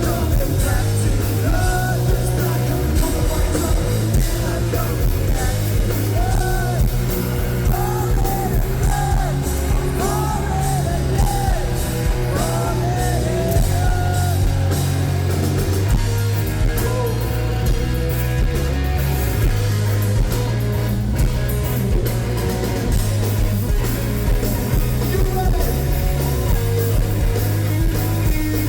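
A rock band playing live: a singer's voice over electric guitar and heavy bass, loud and continuous, with the sung melody most prominent in the middle stretch.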